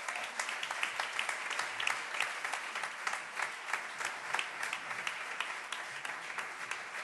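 Seated audience applauding: many hands clapping in a dense, even patter.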